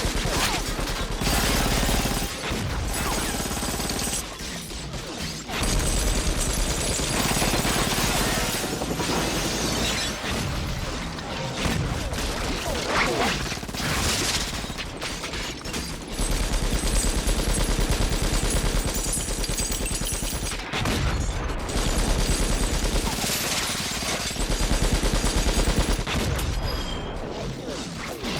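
Film sound effects of a rapid-fire machine gun firing long, sustained bursts, mixed with glass shattering and a music score. The firing comes in several bursts of a few seconds each.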